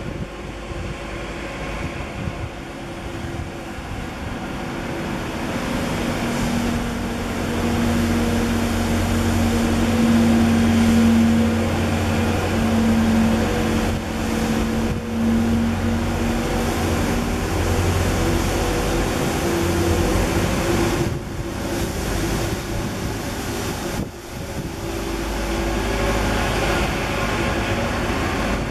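A motor vehicle's engine hum, steady, swelling to its loudest around the middle and fading after, over wind noise on the microphone.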